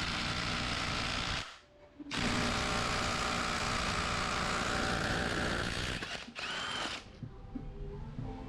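Impact wrench hammering on a G35 engine's crankshaft pulley bolt in three runs: a long burst of about four seconds between two shorter ones. The bolt is a notoriously tight one that most impacts can't take off.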